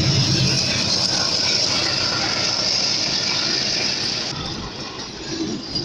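Kenya Railways diesel locomotive passing close by with its engine running loud, then freight wagons rolling past. The sound drops a little about four seconds in.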